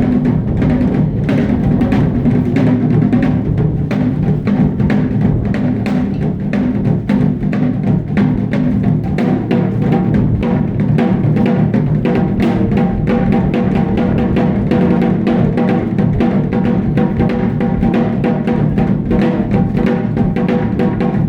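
Wadaiko (Japanese taiko drums) played in a fast, continuous rhythm of dense strikes without a pause.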